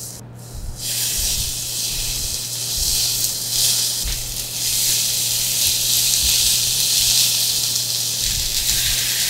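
Raw pork belly sizzling on a hot griddle plate. A steady hiss starts about a second in as a piece of fat greases the plate, and it gets louder a few seconds later as thick strips are laid on.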